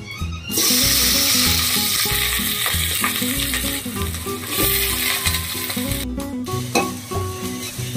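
Sliced onions and green chillies hitting hot oil in an aluminium pot and sizzling, starting suddenly about half a second in and frying steadily, with background music underneath.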